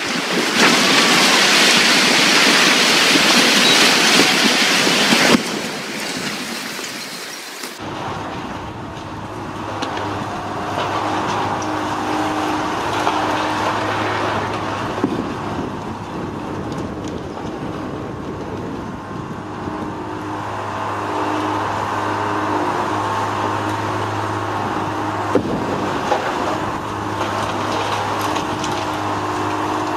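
Heavy demolition machinery at work. A loud rushing crash of concrete debris breaking away and falling comes first. About eight seconds in, it gives way to the steady hum of a heavy machine's diesel engine running, with a couple of faint knocks.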